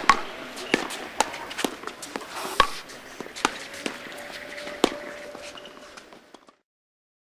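Pickleball rally: paddles striking the ball in sharp, irregular pops about every half second to a second over steady court noise. The loudest hits come near the start and about two and a half seconds in, and the sound fades out to silence about six and a half seconds in.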